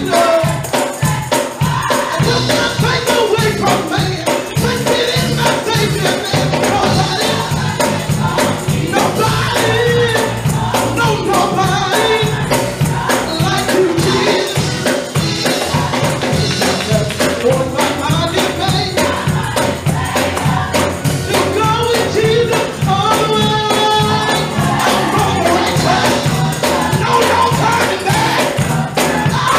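Gospel youth choir singing, accompanied by organ, with a tambourine and hand clapping keeping a steady beat.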